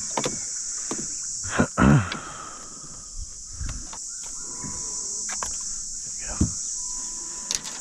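A steady, high-pitched insect chorus drones throughout, with scattered knocks and clicks over it, the loudest about two seconds in.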